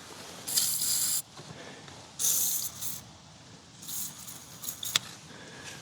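Aerosol can of PB Blaster penetrating oil sprayed in three short hissing bursts, with a sharp click near the end.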